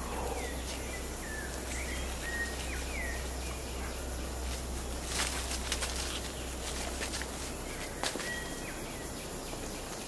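Rainforest insect chorus of crickets, with short whistled bird calls sliding in pitch during the first three seconds and again near the end. Leaves and undergrowth rustle about five seconds in, and a single sharp click comes about eight seconds in.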